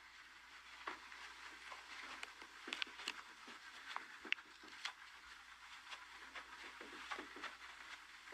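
Faint, irregular clicks and light taps over a low hiss, with no speech.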